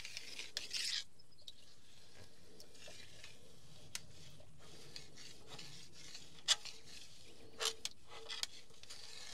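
A rag wiping old oil out of the bottom of a transmission case. It makes a soft rubbing in the first second, then goes quieter, with a few light scattered clicks and knocks.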